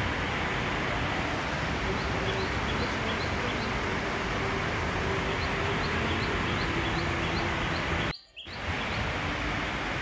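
Steady rain falling, with a small bird repeating a short high chirp two or three times a second through the middle of the stretch. The sound cuts out for a moment just after eight seconds, then the rain resumes.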